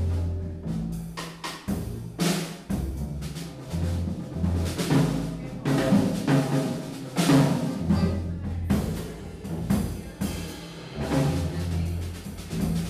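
Live improvised jazz by upright double bass, accordion and drum kit: plucked bass notes under frequent drum and cymbal strikes, with accordion sounding in the middle range.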